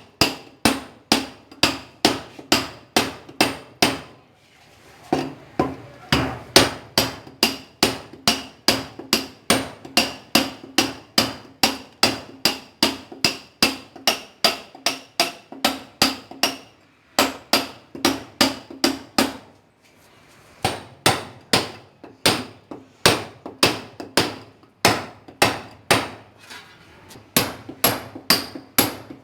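Club hammer beating on a steel chisel: fast, even blows, about two or three a second, each with a short metallic ring. The hammering stops briefly three times, about 4 seconds in, at about 17 seconds and around 20 seconds, then carries on.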